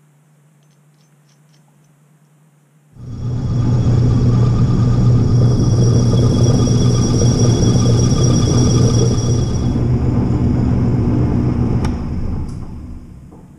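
Small metal lathe switched on, running steadily with a motor hum and a high whine while it machines a small aluminium crank disc to clean it up. It starts abruptly about three seconds in and winds down near the end.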